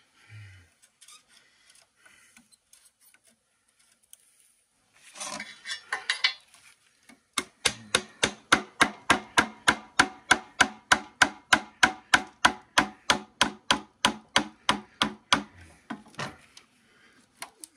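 A screwdriver working at the glued-in copper field-coil windings of a large generator stator. A short scrape about five seconds in, then some eight seconds of sharp, ringing metallic clicks, about four a second.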